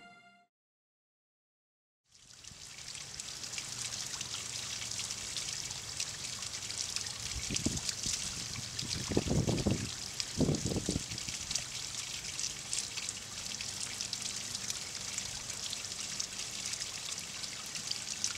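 Pond water trickling steadily, fading in after about two seconds of silence, with a few short low bumps between about eight and eleven seconds in.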